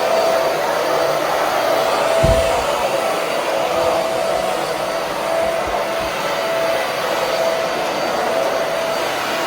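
Vacuum cleaner running steadily, a whirring motor with a wavering whine, with a low thud about two seconds in.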